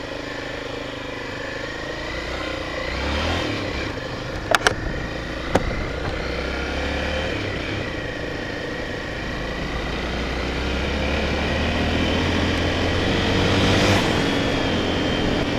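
Honda Tornado 250's single-cylinder four-stroke engine running as the motorcycle rides through thick mud. The engine note climbs and gets louder over the last several seconds under a burst of throttle, the kind used to fling mud off the tyre. There are a few sharp knocks about four and a half and five and a half seconds in.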